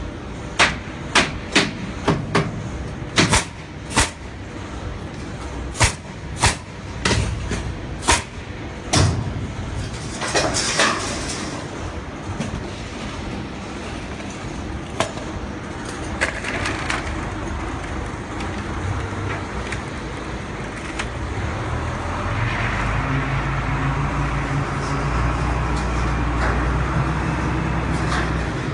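Pneumatic nail gun firing into the wooden bracing of glass crates: about a dozen sharp shots in the first nine seconds at irregular intervals, then a short hiss and a few fainter knocks. In the last few seconds a low, steady engine rumble builds.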